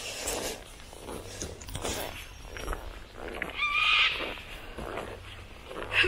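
An animal panting heavily in a steady rhythm, about two breaths a second, with a short high whine about three and a half seconds in.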